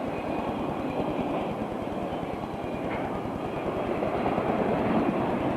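Santa Fe freight train rolling past, a steady rumble and rattle of wheels on rail that grows a little louder near the end.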